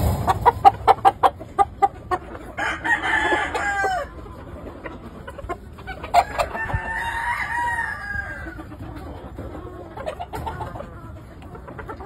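Gamefowl rooster clucking in a quick run of short notes, then roosters crowing twice, the first about two and a half seconds in and the second, longer one about six seconds in.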